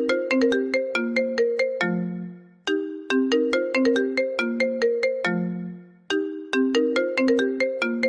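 An iPhone ringtone playing: a short tune of quick, bright notes that ends on a lower held note fading out, repeating about every three and a half seconds.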